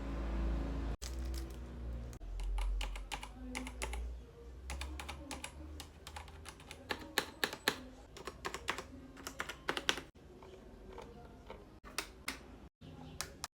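Typing on an AK96 full-size mechanical keyboard: irregular, rapid key clicks and clacks, with a low rumble under the first few seconds.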